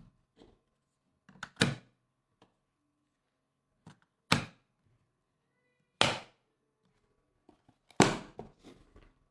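Four sharp thunks, about one and a half to two seconds apart, with a few fainter clicks between them.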